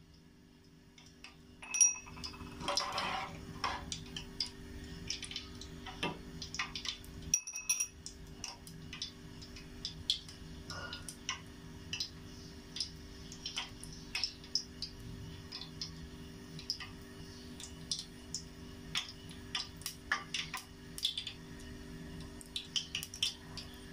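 Oil with whole cloves heating in a small stainless steel saucepan, crackling with irregular small ticks and pops, several a second. It is warmed only until hot, short of a boil.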